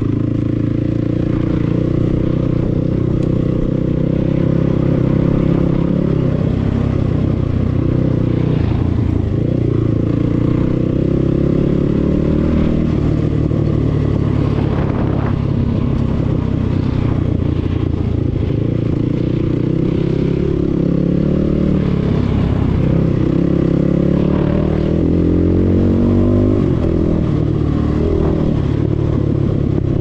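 Enduro dirt bike engine running under load on a rough forest track, its pitch rising and falling with the throttle, with a climbing rev about 25 seconds in. Clatter and knocks from the bike over the bumpy ground.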